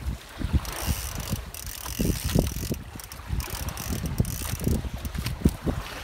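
Conventional fishing reel ratcheting under load while a large yellowfin tuna is being fought on the line, over irregular low thumps.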